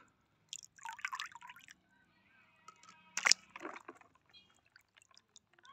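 Water dripping and sloshing in a plastic tub as a wet plastic toy is handled in it, with one louder sharp hit about three seconds in.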